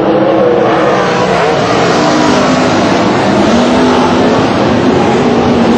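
A pack of winged sprintcars racing, their fuel-injected methanol V8 engines running together as one loud, continuous sound, with several engine pitches rising and falling as the cars circle the track.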